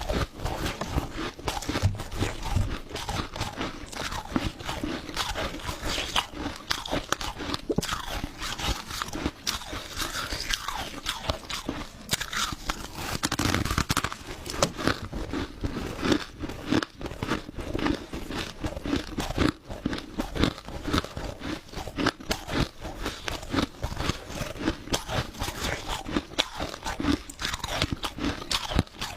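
Close-up crunching of crushed ice being bitten and chewed, a rapid, continuous run of sharp, icy crunches.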